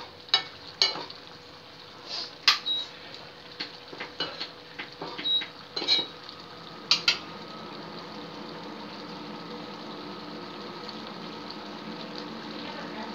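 Metal ladle stirring prawn gravy in a kadai, knocking and scraping against the pan a dozen or so times over the first seven seconds. After that only a steady hiss of the gravy simmering on the gas stove.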